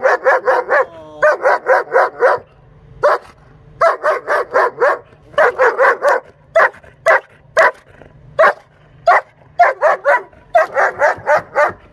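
A female dog barking from inside a plastic aviation crate, in rapid volleys of about five or six barks a second broken by short pauses. It is defensive, unfriendly barking at the handler standing over the crate.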